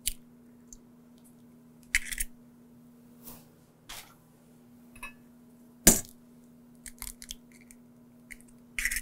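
Eggs being cracked open into a stainless steel mixing bowl: scattered sharp knocks and shell cracks, the loudest about six seconds in and a quick run of them near the end.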